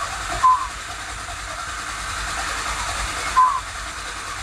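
Truck engine being cranked by the starter with the gas pedal floored, so it turns over without firing, to build oil pressure after an oil change: a steady whirring hiss with a low rumble. Two short high chirps stand out, about half a second in and again near the end.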